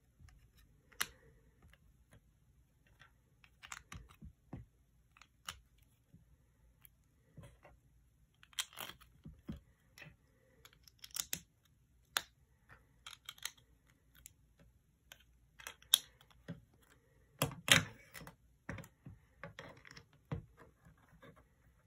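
Plastic LEGO bricks being handled and pressed together: irregular clicks and small clatters, with the loudest cluster about three quarters of the way in.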